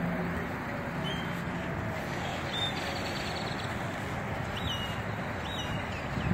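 Steady outdoor background noise with a few short, high bird chirps scattered through it.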